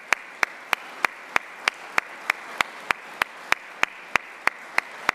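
Audience applauding, with one sharp clap standing out at a steady pace of about three a second over the general applause.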